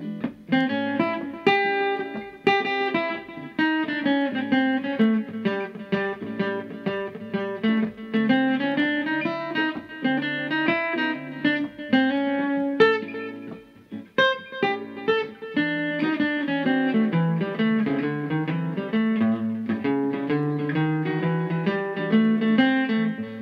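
Steel-string acoustic guitar playing improvised single-note blues lead lines, a steady stream of picked notes over a backing track.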